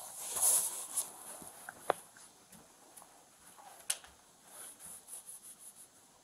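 Handling noise: rustling with scattered sharp clicks, and a quick run of soft ticks near the end.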